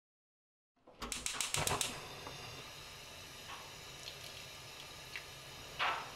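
Chicken broth simmering in a stainless steel pot, a steady low bubbling. A quick run of sharp clicks about a second in, a few light taps, and a louder splash near the end as shredded chicken goes into the broth.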